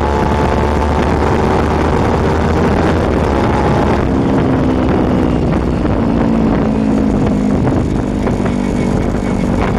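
Kawasaki Ninja 250 FI's parallel-twin engine running through an Akrapovic aftermarket exhaust while riding, heard close to the muffler over a steady low rumble. The engine note holds its pitch, drops about four seconds in, falls a little further and settles lower near the end.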